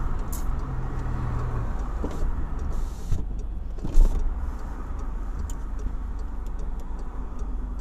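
Steady low rumble of a car with its engine running, heard from inside the cabin, with street traffic outside. There is a single sharp thump about four seconds in.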